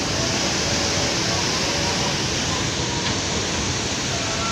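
Steady rushing noise of churning tsunami water surging around the boat.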